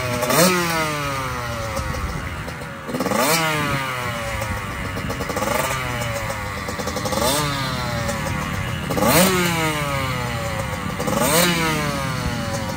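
Yamaha youth dirt bike engine running on its stand, revved with about six quick throttle blips, each rising sharply in pitch and falling back to idle.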